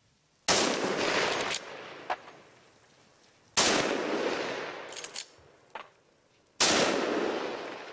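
Three hunting-rifle shots about three seconds apart, each followed by a long echo that dies away over a second or so.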